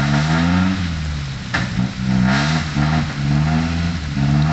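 Six-wheel dump truck's diesel engine revving hard, its pitch climbing and dropping again several times in a row.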